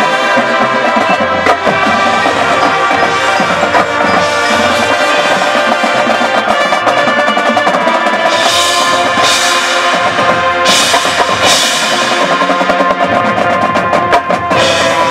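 High school marching band playing its field show: sustained brass and wind chords over drums and percussion, with a few bright crashes a little past the middle.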